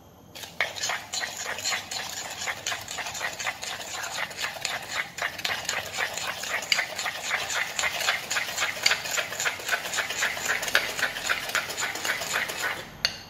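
A fork beating an egg into creamed butter and sugar in a glass mixing bowl, clicking and scraping against the glass in a quick, even rhythm. It starts about half a second in and stops shortly before the end.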